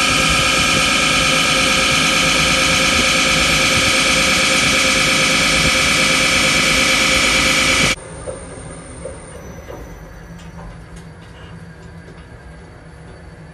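CNC lathe diamond-cutting the face of a spinning Bentley aluminium alloy wheel: a loud, steady high-pitched squeal from the cutting tool on the metal. About eight seconds in it stops abruptly, leaving a much quieter machine hum with a few light clicks.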